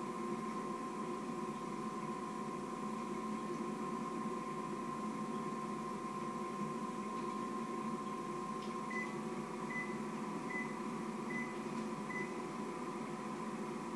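Countertop microwave oven running with a steady hum. About nine seconds in there is a click and the hum changes slightly, then five short high beeps about three-quarters of a second apart: the microwave signalling that its time is up.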